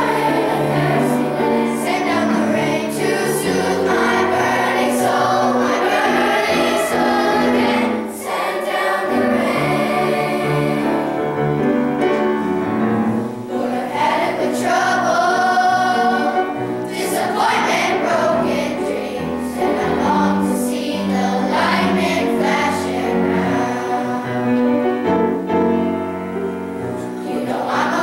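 Middle-school choir of boys' and girls' voices singing together, holding long notes that move from one to the next.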